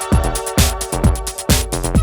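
Electronic dance music from a DJ mix: a steady four-on-the-floor kick drum, a little over two beats a second, under sustained synth tones and hi-hats.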